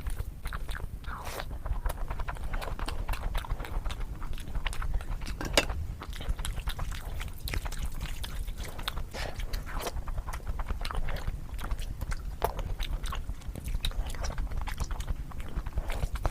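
Close-up chewing and biting of chicken: a run of irregular short clicks and smacks from the mouth, over a steady low hum.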